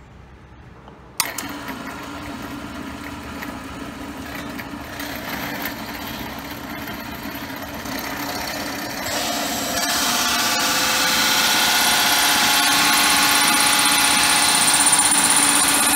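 A drill press switches on about a second in and runs, driving a 2-inch wood-cutting hole saw into a thin B20 bronze crash cymbal. About nine seconds in the cutting gets louder, with a high metallic ringing and screech from the cymbal as the saw bites.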